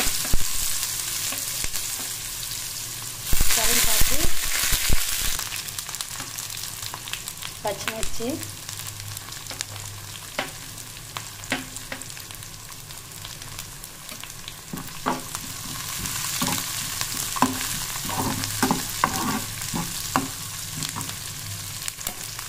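Chopped onions, curry leaves and green chillies frying in hot oil with cumin and mustard seeds: a steady sizzle, with a loud burst of spattering about three seconds in as the curry leaves go into the oil. In the second half a steel spoon clicks and scrapes against the pan as the mixture is stirred.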